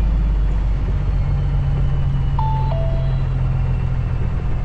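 GPS navigator chiming a two-note ding-dong like a doorbell, high then low, about two and a half seconds in: its alert for a turn or something coming up ahead. Under it, the truck's Cummins ISX diesel drones steadily, heard from inside the cab while driving.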